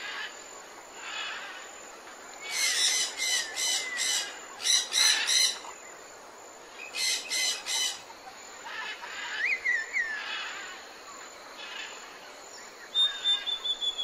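Tropical jungle birds calling: two runs of loud, rapid, harsh repeated calls, then a short falling whistle and a thin high whistle near the end, over a steady background hiss.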